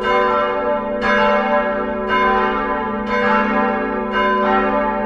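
Bells ringing, struck about once a second, each stroke ringing on into the next.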